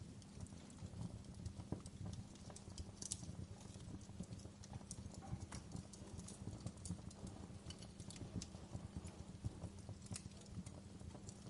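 Wood campfire burning: many small irregular crackles and pops over a low, steady rumble of the flames.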